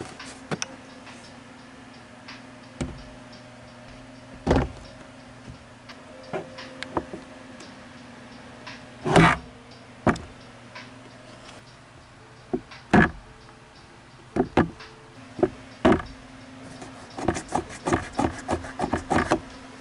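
Plastic glove box of a 2020 Toyota Corolla knocking and clicking as it is handled and refitted into the dashboard: scattered single knocks, the loudest about halfway through, then a quick run of clicks near the end.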